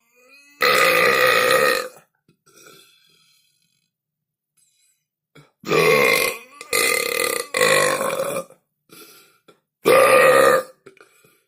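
A person burping loudly, five times: one long burp, then after a pause three burps in quick succession, and a short burp near the end.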